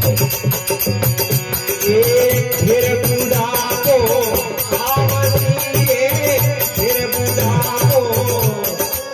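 Rajasthani devotional folk music: a man's voice sings an ornamented, wavering melody over a held harmonium tone, coming in about two seconds in. A dholak beats a steady rhythm underneath while small handheld percussion jingles in time.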